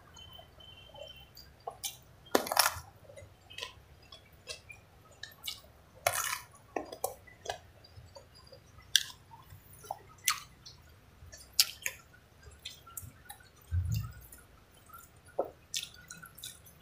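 Close-miked mukbang eating by hand: wet chewing of rice and fried mackerel, with irregular sharp mouth clicks and smacks, and a dull thump late on.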